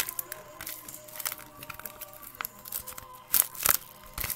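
Paper squishy made of taped paper and stuffing being squeezed in the hands, its paper and tape crinkling and crackling in irregular bursts, loudest about three and a half seconds in.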